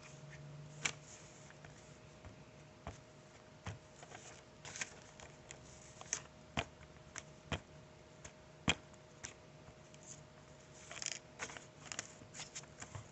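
Glue stick being rubbed along the edges of a sheet of paper, faint, with scattered small clicks and taps from handling the paper and stick.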